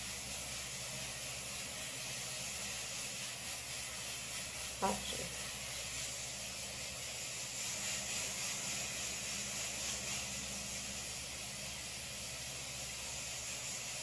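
Steady hiss over a faint low hum: room tone and recording noise. About five seconds in there is one brief, short sound.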